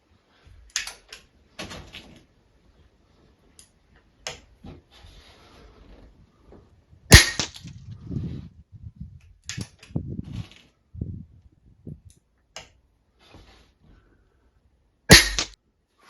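Anschütz 9015 HP single-shot air rifle firing twice, about eight seconds apart, each shot a sharp crack. Fainter clicks in between come from handling and reloading the rifle.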